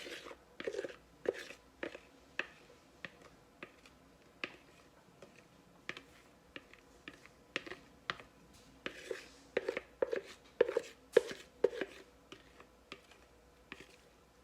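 A kitchen utensil scraping and knocking against a bowl as thick, chunky ice cream mixture is scooped out into a container: irregular clicks and scrapes, busier and louder about nine to twelve seconds in.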